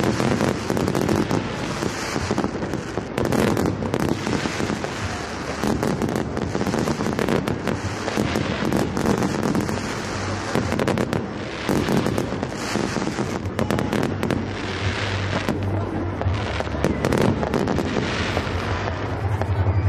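Fireworks going off: a dense, unbroken run of bangs and crackles.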